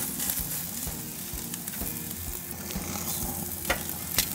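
Two ribeye steaks sizzling steadily on hot gas-grill grates, with two sharp clicks of metal tongs near the end.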